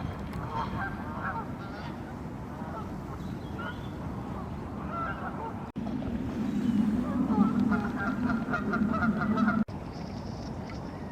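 Geese honking over and over. In a louder middle stretch, set off by two brief sudden dropouts, the calls come thicker over a low steady rumble.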